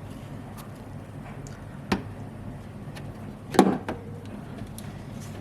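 Two sharp plastic clacks about a second and a half apart, the second louder, with a few lighter ticks between them. These come from hands unclipping and shifting the plastic fusible-link and fuse-box housing, over a steady low hum.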